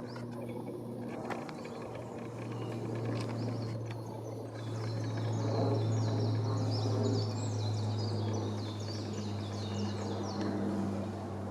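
Birds calling outdoors over a steady low hum. A rapid series of short, high chirps starts about halfway through and runs for several seconds.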